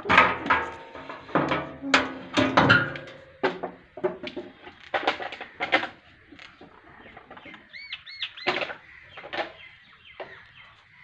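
Birds calling: a run of loud, sharp calls in the first half, then a few short chirps about eight seconds in.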